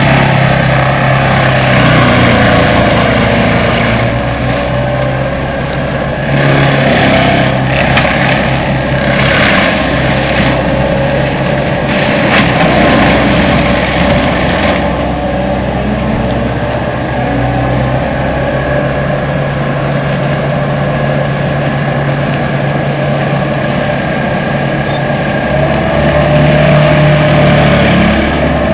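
Diesel engine of an ASV RC100 tracked skid steer running steadily at working speed, driving a Seppi MiniForst hydraulic mulcher. A few short harsh noises come near the middle.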